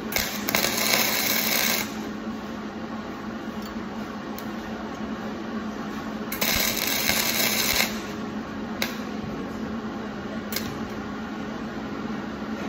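Electric welding arc crackling in two short bursts, each about a second and a half long and about five seconds apart: short tack welds. A steady hum runs underneath, with a few sharp clicks between the welds.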